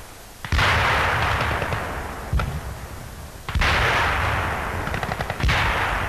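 Battle gunfire: three sudden heavy shots, about half a second in, midway and near the end, each trailing off in a long rolling echo, with lighter rapid machine-gun fire under them.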